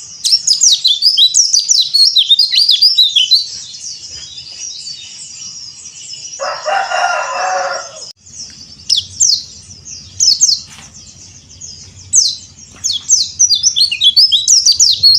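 White-eye (pleci) songbirds twittering in quick bursts of high, sharply sliding chirps. A harsher, lower call lasting under two seconds comes about six seconds in.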